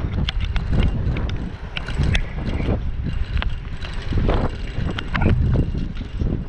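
Mountain bike rolling on a descent: wind rushing over the microphone and tyre rumble, with frequent sharp clicks and rattles from the bike.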